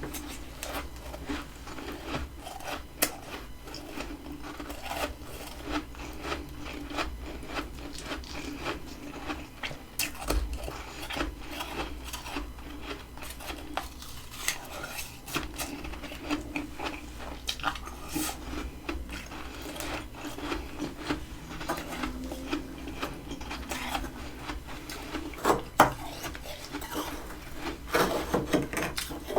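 Freezer frost being scraped and chipped with a utensil: a continuous run of short gritty scrapes and ticks, with a few sharper cracks toward the end.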